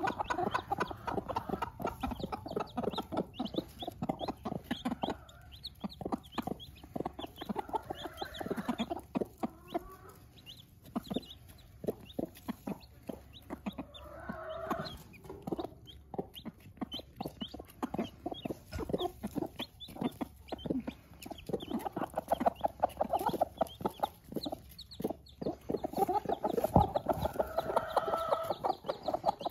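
Mother hens clucking low and repeatedly to their chicks over food, with the chicks' high peeping and quick taps of beaks pecking at watermelon and straw.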